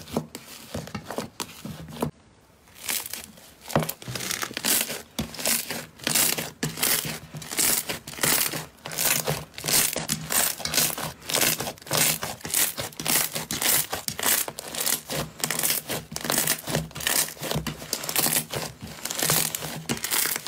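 Hands squishing, poking and kneading a large mass of fluffy slime, giving repeated crinkly, crackling squishes at about two a second, with a short break about two seconds in.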